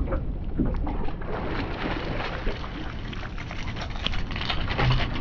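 Small open fishing boat at sea: wind buffeting the microphone over steady water and boat noise, with many short knocks and rattles.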